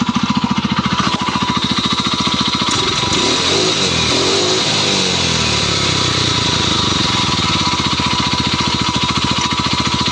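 Stels Kapitan's four-stroke engine running with a steady rapid pulse, revved up and back down around the middle. The hard anvil-like knock is gone after an RVS additive treatment, though a light scraping remains.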